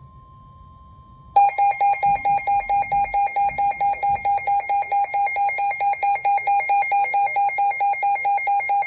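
A faint, steady NOAA Weather Radio 1050 Hz warning alarm tone cuts off about a second in. A weather radio's loud alert alarm then sounds, a rapid beeping at about four beeps a second, announcing a severe thunderstorm warning.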